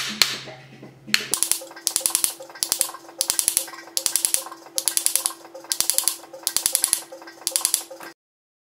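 Small jeweller's hammer tapping a steel setting tool against a sterling silver channel setting. The light metallic taps come in quick clusters about every 0.7 s, over a faint steady hum, and stop abruptly about eight seconds in.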